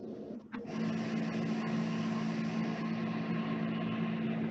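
Steady machine-like hum with hiss, a low drone of a few even tones. It dips briefly about half a second in, then holds steady.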